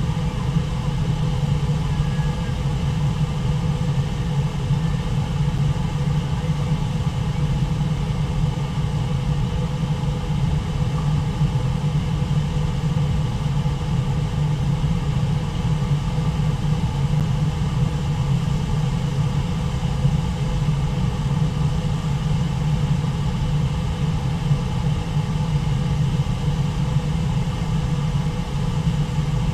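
Steady rumble of a wide, low river waterfall, whitewater pouring over the falls, heaviest in the low range.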